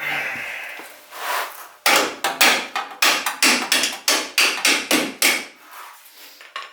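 Hammer blows driving a shock absorber's lower mounting bolt out, struck on its threaded end with the nut threaded back on to protect the threads. Two single strikes, then a quick run of about a dozen blows, roughly four a second, that stops near the end.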